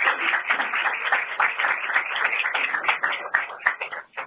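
Audience applauding, dense claps that thin out and die away near the end.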